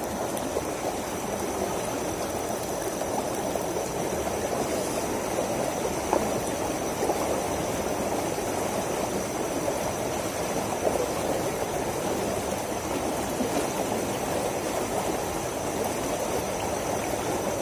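Fast-flowing water rushing steadily down a narrow concrete-edged irrigation channel, an even, unbroken rush.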